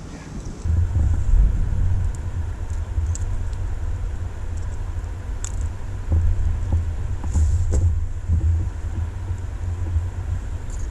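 Wind buffeting the microphone of a camera on a fishing kayak: a loud, uneven low rumble that starts about a second in, with a few faint sharp clicks on top.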